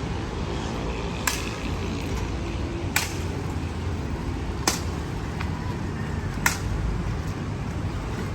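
Steady low outdoor rumble with four sharp knocks spaced evenly, roughly every second and three-quarters.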